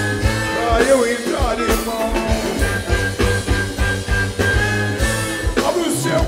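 Live band playing funk with a steady beat and a male singer singing over it into a microphone.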